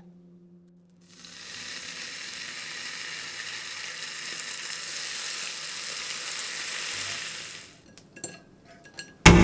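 Bacon sizzling in a frying pan: a steady hiss that fades in and runs for about six seconds, then stops. A few sharp clicks of a metal spatula in the pan follow. Right at the end, a sudden loud low rumble breaks in.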